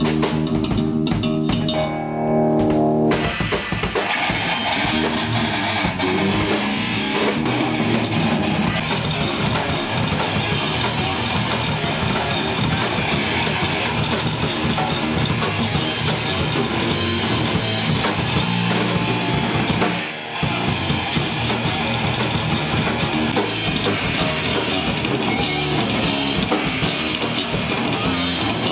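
Live rock band playing loud during a sound check. A guitar plays separate notes for the first few seconds, then drums and the full band come in with a dense, noisy wall of sound that breaks off briefly about twenty seconds in.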